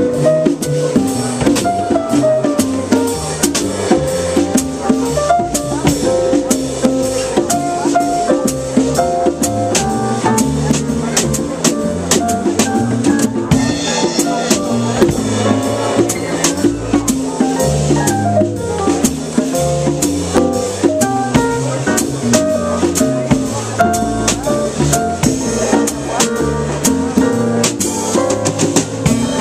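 Jazz quartet playing live, the drum kit's steady strokes running under a busy line of melody notes.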